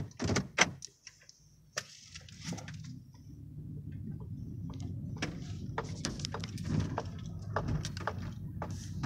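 Knocks and clicks of a phone being handled against the car's interior, then from about three seconds in a steady low rumble of the car running, heard inside the cabin, with more scattered clicks of handling on top.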